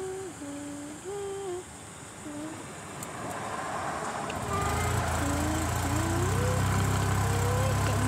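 A person humming a tune in short held notes that step up and down. About four and a half seconds in, a low steady rumble from the moving golf cart comes in and grows louder.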